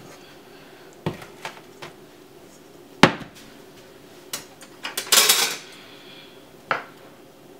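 Stainless steel kitchenware clattering: a metal mixing bowl set down with one sharp knock about three seconds in, with lighter clinks and knocks of metal utensils before and after, including a quick run of clatter about five seconds in.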